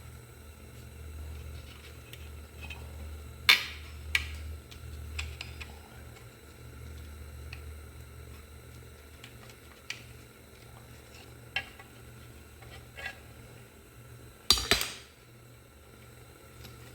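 Scattered metallic clinks and clanks of hand tools against metal parts, over a low steady hum. Two sharp clanks come a few seconds in, a few lighter ticks follow, and the loudest clatter comes near the end.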